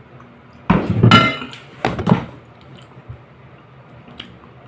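A plate knocking and clinking against the table as it is set down, with one loud ringing clatter about a second in and two lighter knocks just after.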